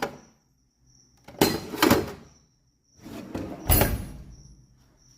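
Two short scraping, rattling noises about a second and a half apart, the second with a low thud at its start: a mechanic's drawer of hand tools being slid and handled.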